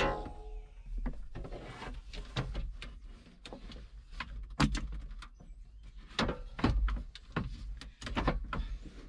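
A hard plastic dash trim panel knocking, clicking and rattling against a tractor's console as it is worked into place by hand, in irregular strokes.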